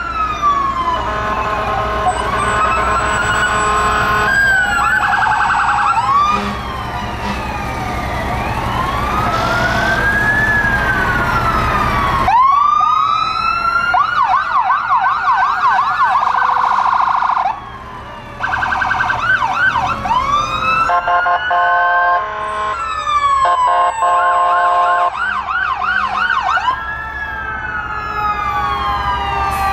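Several electronic emergency-vehicle sirens from passing fire engines, a rescue pickup and an ambulance, sounding together over the trucks' engines. Slow rising-and-falling wails give way to rapid yelps about twelve seconds in, with stepped two-tone patterns later on.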